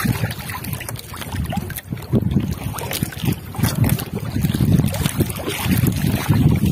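Wind buffeting the microphone in uneven gusts, over water lapping around a small fishing boat.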